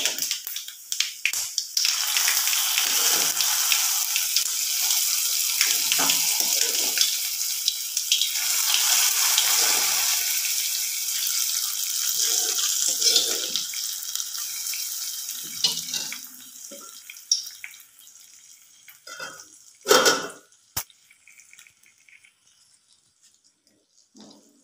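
Hot oil tempering of mustard seeds, green chilli, shallots and dried red chillies hitting a curry and sizzling loudly, then slowly dying away over about fifteen seconds, with a few soft knocks. A short knock and a click come near the end.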